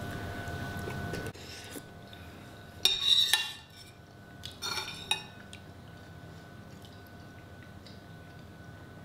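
Metal spoon scratching and clinking against a soup bowl, loudest about three seconds in and again, more softly, around five seconds in. A steady background hum stops about a second in.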